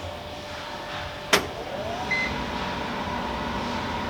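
Salva Kwik-Co convection oven running with a steady fan whir. About a second in there is a sharp click, then a rising whine as the fan motor spins up and settles into a steady hum, with a short high beep just after.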